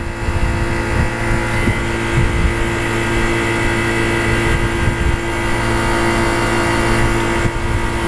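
ClimateMaster water-source heat pump running in heating mode, a steady compressor hum, with a hiss of R-22 vapor flowing through the manifold gauge set into the suction-side service port. The hiss eases slightly near the end.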